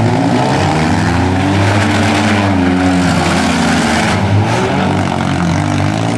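Several four-cylinder compact demolition derby cars' engines running and revving together, their pitches rising and falling over one another.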